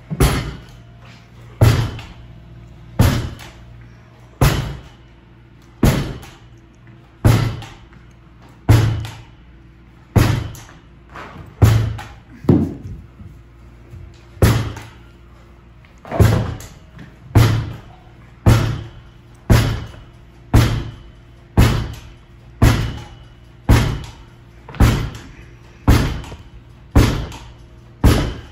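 Lacrosse ball hitting a wall again and again in wall ball practice, each hit a sharp knock that echoes briefly in the room. The hits come about every second and a half, then quicken to about one a second a little past halfway.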